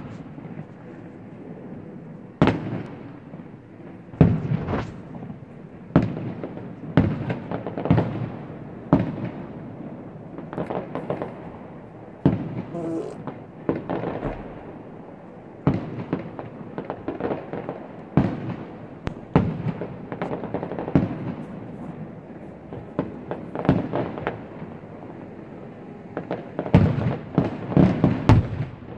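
Fireworks display: aerial shells bursting one after another, each a sharp bang with a rolling echo, coming every second or two and bunching into a rapid volley near the end.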